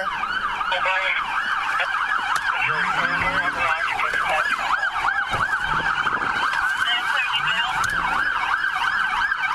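Police car siren in fast yelp mode, sweeping up and down about three or four times a second without a break.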